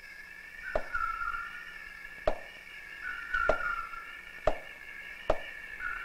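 Chopping blows into wood, five sharp strokes about a second apart, typical of an axe cutting into a tree trunk to open a wild bees' nest. A steady high-pitched drone runs underneath.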